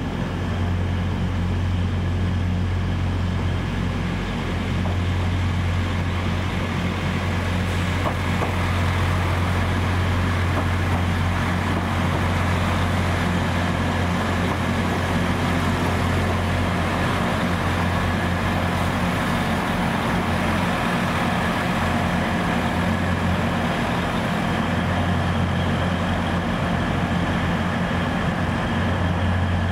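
Diesel multiple-unit train engines running steadily, a deep even hum with no break.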